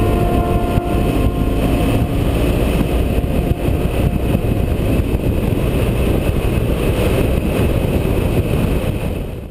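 Motorcycle riding at road speed, its engine mixed with heavy wind rumble on the bike-mounted camera's microphone. The sound fades out near the end.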